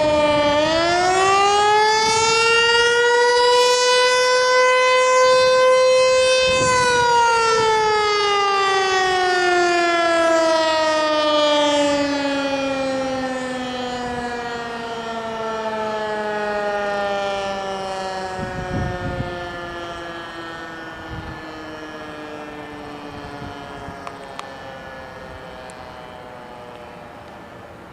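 American Signal T-121 electromechanical outdoor warning siren sounding its tone: the pitch dips and climbs back up over the first few seconds, then about seven seconds in it winds down in a long, slowly falling tone that fades away near the end as the rotor coasts to a stop.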